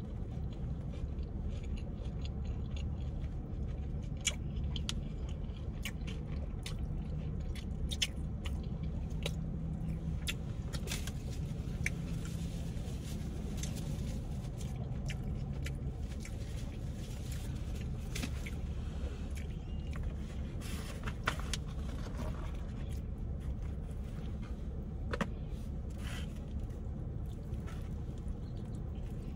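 Steady low hum of a parked car's engine idling, heard from inside the cabin, with scattered short clicks and smacks of close-up chewing while eating a sub sandwich.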